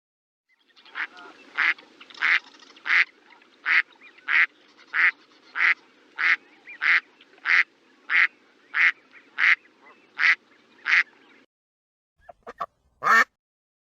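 Duck quacking in a steady series of about sixteen short quacks, roughly one every two-thirds of a second, then stopping. After a brief pause, a couple of faint quacks and one loud one come near the end.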